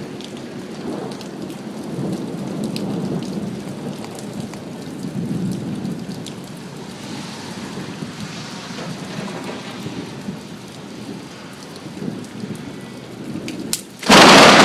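Steady rain with low rolling thunder. Near the end a sudden, very loud thunderclap from a lightning strike about 200 ft away.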